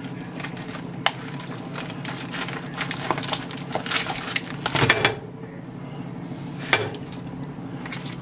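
Plastic wrap on a tray of raw chicken breasts crinkling and tearing as it is opened, with sharp knocks against a ceramic plate, the loudest about five seconds in and another near seven seconds.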